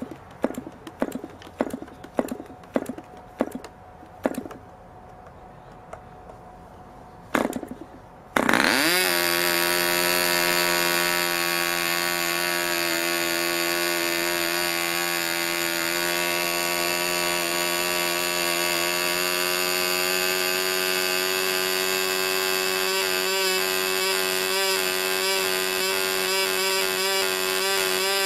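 New RO-JETT .51 two-stroke glow engine with a 10x6 propeller being hand-flipped: a string of sharp flips and pops, then it catches about eight seconds in and runs at a steady high pitch. From about 23 seconds the note begins to warble as the engine, set at the break for break-in, cycles in and out.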